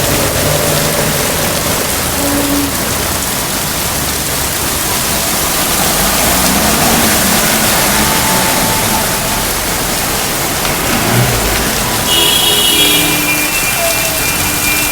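Steady, loud rush of water on the street during a downpour, with a few brief tones near the end.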